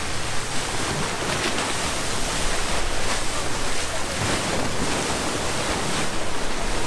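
Rushing, splashing water of a moving boat's bow wave streaming along the hull, with wind on the microphone and a low steady engine hum underneath.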